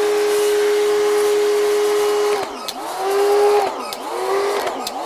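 Muc-Off electric pressure washer spraying in bursts. Its motor whine rises as it starts, holds steady with a spray hiss above it, then winds down about two and a half seconds in and twice more near the end, starting up again each time.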